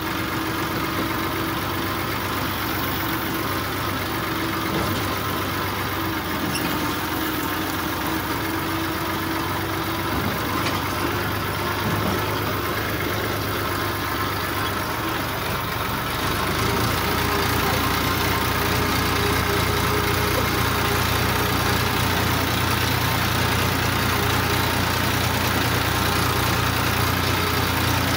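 Farm tractor's diesel engine running steadily as the tractor drives along a dirt track, heard from the driver's seat. About halfway through, the engine note grows louder and heavier and stays that way.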